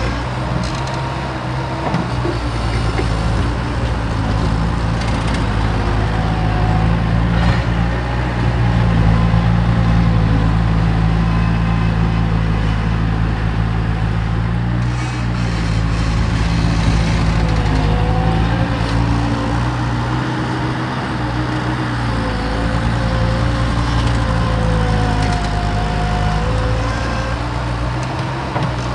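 Bobcat skid-steer loader working as it digs, its engine running steadily under load with a higher tone that wavers up and down, and a few sharp knocks along the way.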